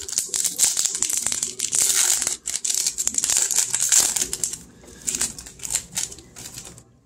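Shiny foil wrapper of a baseball card pack being torn open and crinkled in the hands: a dense crackle for about four seconds that thins to a few faint rustles as the cards come out.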